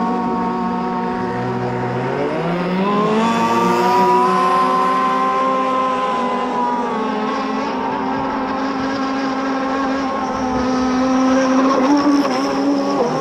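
Several gas-powered RC racing boats running at high revs, their small two-stroke petrol engines giving a high-pitched buzz with more than one engine note at once. The pitch rises about two to three seconds in and dips near the end.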